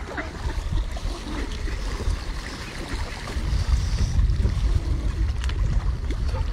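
A crowd of feeding ducks splashing and churning the water as they scramble for birdseed, with wind rumbling on the microphone.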